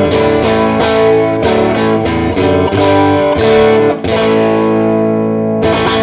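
Electric guitar with a single P90-style pickup, played through a handwired 30-watt all-tube amp (a pair of 6L6s into a 12-inch speaker). Chords are strummed again and again and left to ring, then cut off suddenly at the very end.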